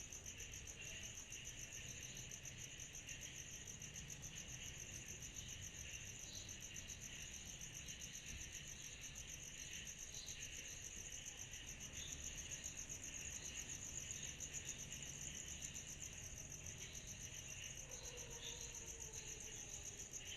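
Chorus of night-singing insects: a steady, rapidly pulsing high trill with a lower, patchier chirping layer beneath it, over a faint low rumble.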